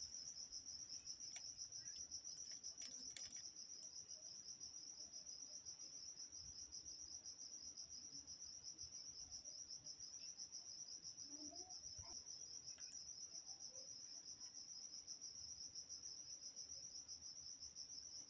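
A cricket chirping, a faint, steady, high-pitched trill of rapid pulses, with a few faint clicks in the first few seconds.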